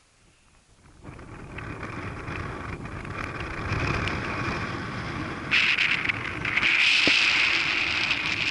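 Wind buffeting the camera microphone: a steady rushing noise that starts suddenly about a second in and gets louder about halfway through.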